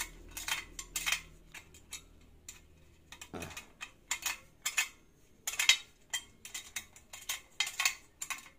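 Spoke wrench turning the spoke nipples of a motorcycle wire wheel, a series of sharp metallic clicks at irregular intervals, with one louder click a little before the six-second mark. The right-side spokes are being tightened to pull the rim sideways while truing it.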